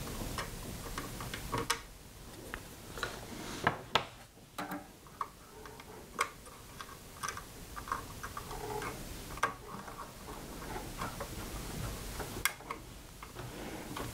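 Small, irregular clicks and taps as a plug-in attenuator module is handled with needle-nose pliers and pressed by hand into its socket in a Tektronix 466 oscilloscope's attenuator assembly. A few sharper clicks stand out among the faint handling noise.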